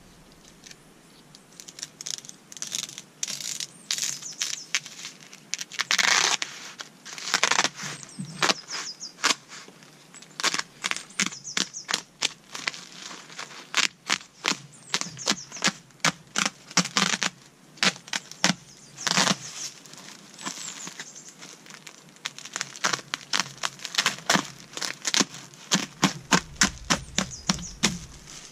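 Woven plastic earthbag being slit with a knife and peeled off its dried soil fill: a long irregular run of sharp snaps, crackles and crinkles of the fabric, with a few longer tearing rips.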